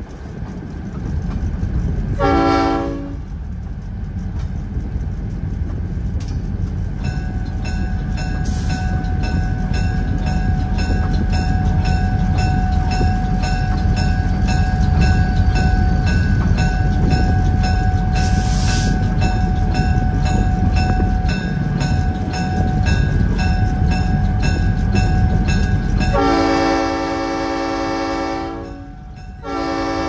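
Locomotive air horn sounding a short blast, then a train rumbling past with its wheels clicking steadily over the rail joints. Near the end the horn sounds a long blast, breaks off briefly and sounds again.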